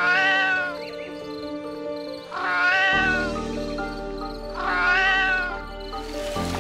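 An animal's drawn-out call, rising and falling in pitch, three times, over background music with steady held notes.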